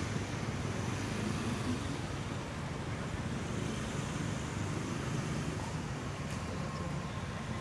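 Steady low background rumble with no distinct events, of the kind a running engine or passing traffic gives.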